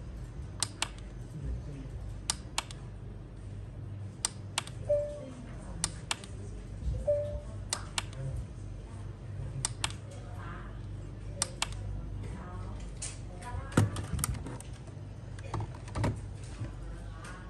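Plastic UNIT push-button on a digital kitchen scale clicking as it is pressed and released over and over, a quick pair of clicks every couple of seconds while the scale cycles through its weighing units. Near the end there is a louder knock as a desk calculator is set down on the steel weighing platform.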